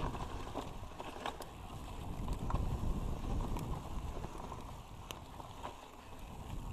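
Mountain bike rolling fast downhill on a dirt trail: a steady rush of tyre noise and wind on the camera microphone, with a few sharp clicks and rattles from the bike over bumps.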